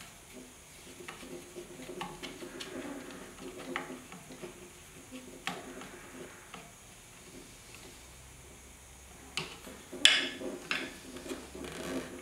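Light metallic clicks and taps of hand tools and small metal parts against a Delta scroll saw's arm linkage while its link is being fitted, with a sharper clack about ten seconds in.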